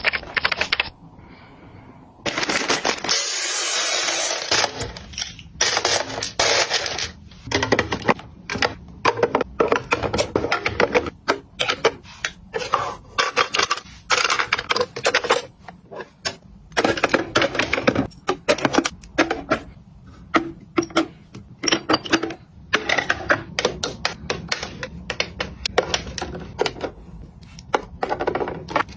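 Small hard objects being handled, clicking, tapping and knocking in quick irregular succession, with a hissing rustle from about two to five seconds in.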